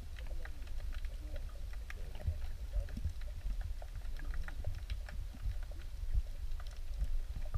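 Underwater ambience picked up by a submerged camera: a steady low rumble with many scattered sharp clicks and crackles.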